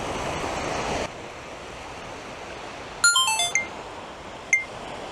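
Surf and wind noise that cuts off abruptly about a second in, followed by an electronic chime on a recording camera: a quick falling run of beeps, then single short beeps about a second apart. This is the camera's power-down signal after recording is stopped.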